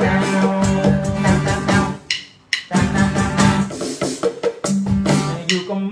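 KAT electronic percussion pad struck with drumsticks, its drum and percussion sounds coming out of a small amplifier mixed with music that has held bass notes and a melody. The sound drops out briefly about two seconds in.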